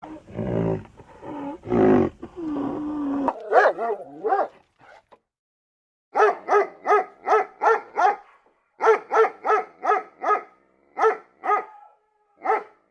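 A dog barking: a quick run of short barks, about three a second, a brief pause, a second run, then a few single barks. Before the barking come low, rough growl-like sounds.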